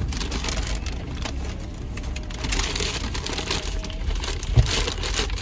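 Car interior with the vehicle's steady low rumble, over which come scattered light rustles and clicks. One sharp thump sounds about four and a half seconds in.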